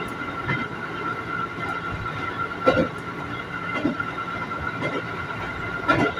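Ex-JR 205 series electric commuter train running, heard from inside the car: a steady rumble with a constant high hum, and a few wheel knocks over the rails.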